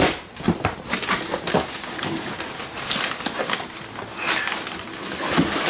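Crumpled brown kraft packing paper crinkling and rustling, with cardboard scraping, as hands dig through a shipping box. Irregular crackles throughout, louder just at the start and again near the end.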